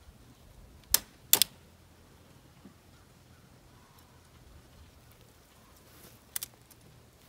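Two sharp clicks close together about a second in, and a fainter double click near the end, from hand work with wire at the steel tube frame of a chicken-run door.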